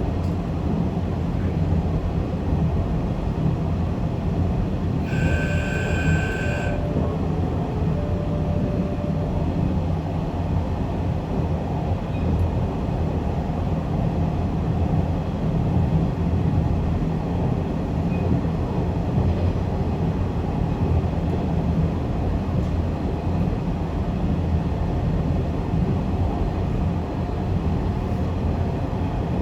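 Zipangu Hiraizumi train running at speed, with a steady, even rumble of wheels on rail. About five seconds in, a brief high tone sounds for a second or two.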